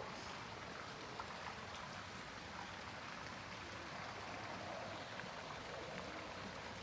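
Faint, steady background noise with a few light ticks scattered through it.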